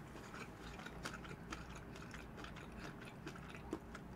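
Faint close-up eating sounds: a scattering of small, irregular clicks and scrapes.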